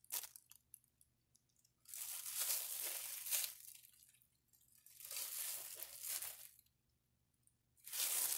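Green corn husks being torn off an ear of corn by hand, with the crinkle of plastic gloves and a plastic bag, in several rustling bursts a couple of seconds apart.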